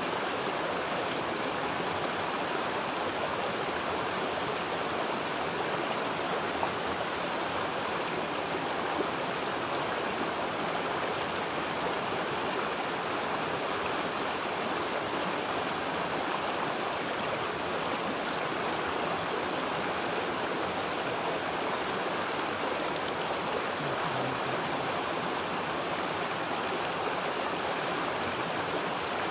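Running water rushing steadily, an even, unbroken wash of sound.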